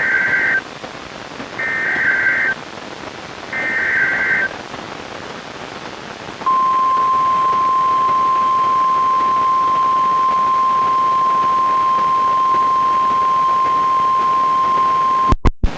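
NOAA Weather Radio emergency alert heard on a weather radio through static hiss. Three SAME header data bursts come first, each about a second long and about a second apart. Then the steady 1050 Hz warning alarm tone sounds for about nine seconds and ends with a few clicks as the audio briefly cuts out, opening a flash flood warning.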